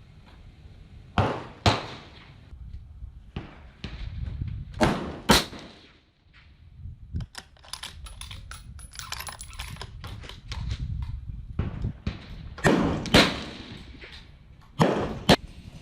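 Rifle gunfire at a shooting range: four pairs of sharp reports, each pair about half a second apart, with a run of fainter cracks in between.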